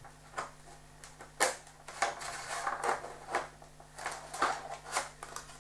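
White foam wing sections being handled and pushed together on a cutting mat: a scattering of light knocks and rubs, about seven or eight, over a faint steady hum.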